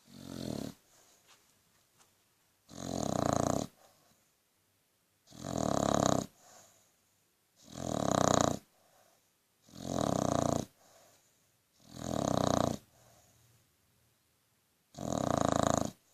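Australian Bulldog snoring: a loud, buzzy snore on each breath, about seven in a row, one roughly every two and a half seconds, with quiet breathing between.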